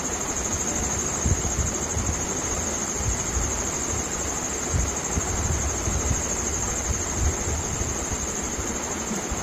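Steady background hiss with a constant high-pitched whine and a soft, uneven low rumble; no distinct pouring sound stands out.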